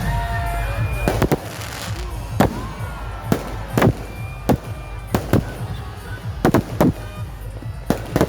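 Aerial fireworks bursting: about a dozen sharp bangs in an irregular series, a few in quick pairs, over a steady low rumble.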